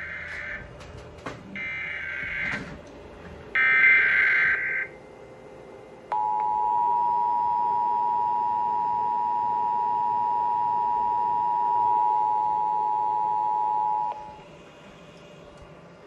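EAS Required Monthly Test tones from a Trilithic EASyCAP alert receiver: three roughly one-second bursts of screeching SAME header data, the first already under way, then the steady two-tone EAS attention signal held for about eight seconds before it cuts off.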